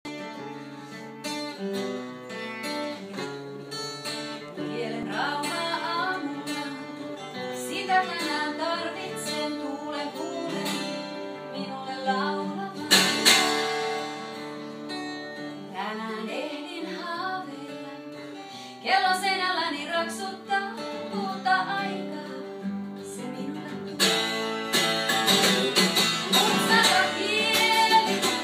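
Acoustic guitar playing a folk song, with picked and strummed chords, joined about five seconds in by a woman singing.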